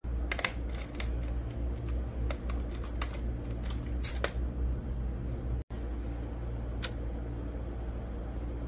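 Scattered sharp clicks and light rattles over a steady low hum, broken by a brief dropout a little past halfway.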